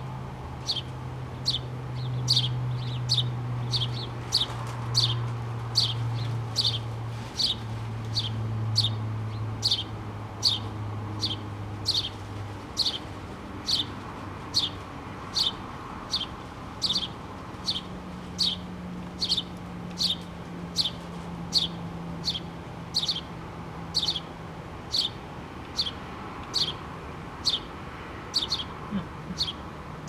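House sparrow chirping: short, high chirps, each dropping slightly in pitch, repeated steadily at about three every two seconds.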